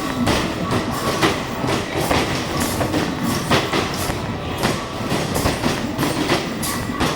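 Basketball arcade machine in play: basketballs repeatedly thudding against the backboard and rim and rattling down the return ramp, with sharp knocks about two a second over a continuous clatter.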